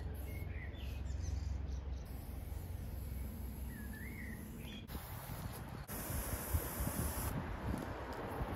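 Outdoor background with a steady low rumble and a bird giving two short warbling chirps. About six seconds in, an aerosol spray-paint can hisses for just over a second, with scuffing and handling noises around it.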